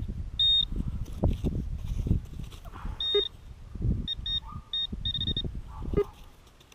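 Metal detector sounding target tones in quick, short high-pitched beeps: one about half a second in, another near three seconds, then a run of rapid beeps between about four and five and a half seconds. Low thuds and scuffs of handling and moving over the dirt run underneath.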